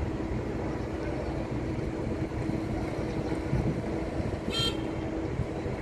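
Steady low engine rumble with a held hum through most of it, and one short high squeak about four and a half seconds in.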